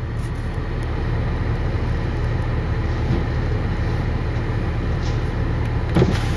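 Dump truck's diesel engine running steadily with a low hum while its hydraulic hoist tips the bed to dump a load of gravel. A short, louder knock comes about six seconds in.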